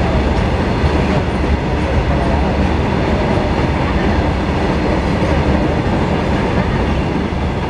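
Freight train of open-top goods wagons rolling past close by: a steady, loud rumble with the clatter of wheels on the rails.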